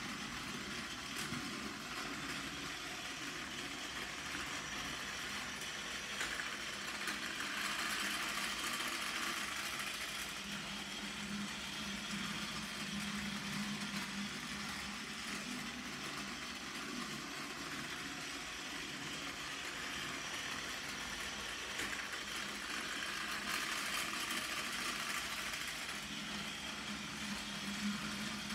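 Plarail battery-powered toy train running around its plastic track, its small electric motor and gears whirring steadily on the rails. The whir grows louder twice, around a third of the way in and again near the end.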